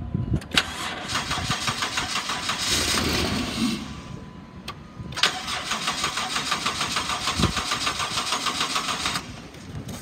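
2007 Dodge Caravan's 3.3-litre V6 cranking on the starter in two attempts of about four seconds each, fed starting fluid, without settling into a run. It turns over but won't keep going, which the seller puts down to a possibly bad fuel pump.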